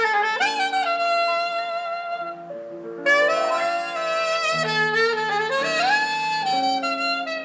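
Instrumental jazz-style music with a lead horn, played from a vinyl record on the Retrolife Player UD006 turntable and heard through its bookshelf speakers.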